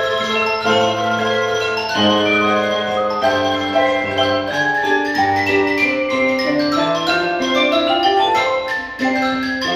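Mallet percussion ensemble of marimba, vibraphone and a higher keyboard mallet instrument playing a fox trot, with many struck, ringing notes over low bass notes and a run of notes stepping downward partway through.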